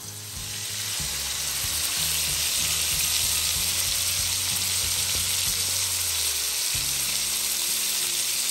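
Flour-dredged fish fillets frying in oil in a pan: a steady hissing sizzle that swells over the first couple of seconds.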